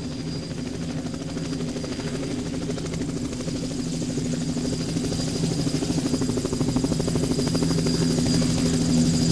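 A steady low drone with a rapid flutter and a faint high whine, growing gradually louder.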